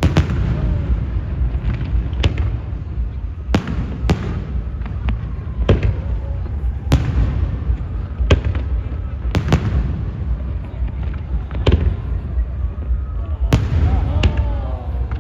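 Aerial fireworks bursting: a string of sharp bangs, about one every second or so, over a continuous low rumble from the barrage.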